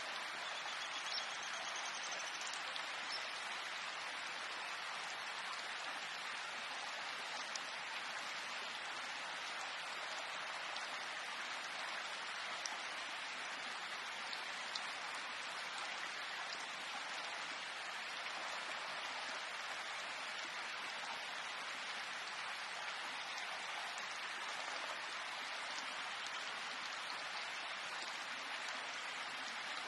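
Steady rain falling: an even hiss, with faint ticks of single drops here and there.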